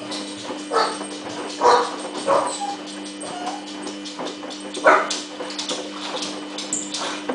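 A dog barking about four times, the loudest bark about five seconds in, over the steady hum and light clatter of a Samsung front-loading washing machine turning its drum slowly in the main wash.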